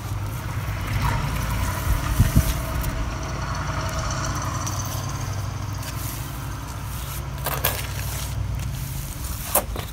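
A motor vehicle's engine running, a steady low rumble that fades out about seven seconds in. Under it, faint scraping of a rubber float pushing and spreading repair mortar over concrete.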